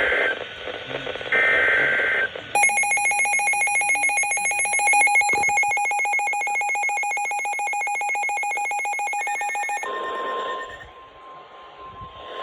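Emergency alert tones on a NOAA Weather Radio broadcast: the last short screeching burst of the SAME data header, then about seven seconds of a rapid, ringing warble alarm, then a steady single-pitched warning alarm tone from about ten seconds in.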